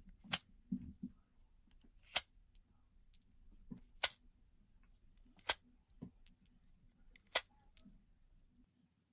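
Sharp, separate clicks, five of them about two seconds apart, with fainter ticks between, in an otherwise quiet room.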